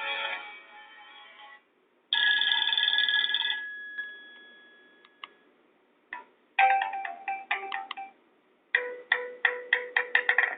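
Nokia 5800 XpressMusic ringtones and alert tones played one after another through a Nokia 220 4G phone's small loudspeaker: a chord fading out, then a bright held tone about two seconds in that dies away, then two quick runs of short notes.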